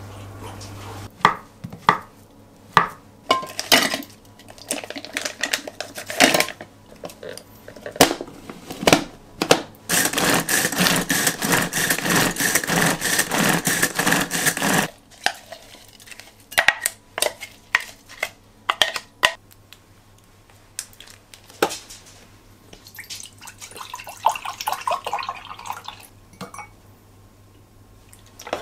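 Kitchen clatter of bowls and utensils, sharp clicks and knocks, then a hand-pull food chopper whirring and rattling for about five seconds as its cord is pulled again and again, churning an açaí mixture.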